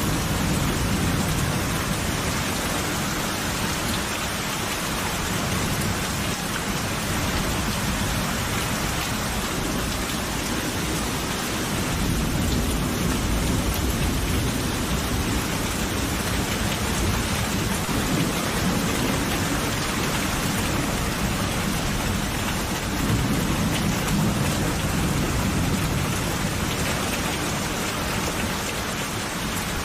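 Steady heavy rain falling, with low rumbles of distant thunder rising and fading a few times.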